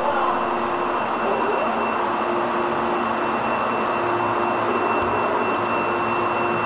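Carlson Design CP101 plotter/cutter running: a steady mechanical whir with a constant hum and a thin high whine.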